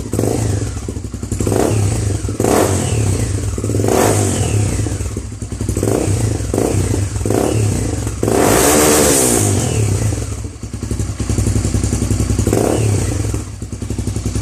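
Honda CB 300R single-cylinder four-stroke engine idling through a Roncar Coyote RS5 aftermarket aluminium muffler, with a string of short throttle blips and one longer rev about eight seconds in. The exhaust note is deep, not crackly.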